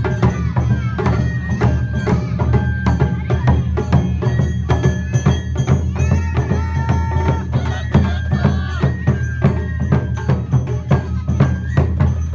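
Lively Japanese traditional festival dance music, live: a fast, dense percussion beat with held high melody notes over it.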